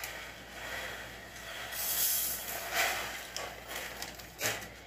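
Rustling and breathy handling noise close to the microphone, coming in a few rushes of hiss.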